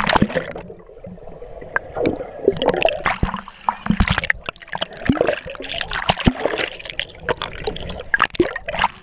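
Water slide run: water rushing, gurgling and splashing, with many irregular knocks and slaps.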